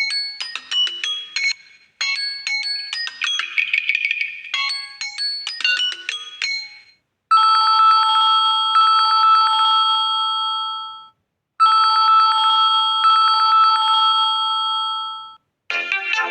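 Samsung Galaxy A06 ringtones played one after another: a quick melody of short bright electronic notes repeating about every two seconds, then a steady trilling ring played twice for about four seconds each. Another ringtone starts near the end.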